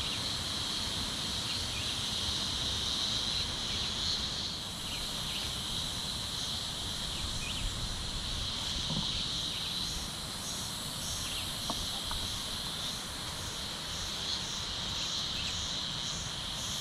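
Insects calling: a steady high-pitched drone, joined about ten seconds in by a second insect calling in short regular pulses, about two a second, over a low rumble.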